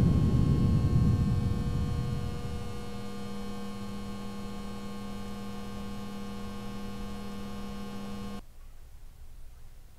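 A low rumble dying away over the first two seconds, under a steady droning hum with several overtones that cuts off suddenly about eight seconds in.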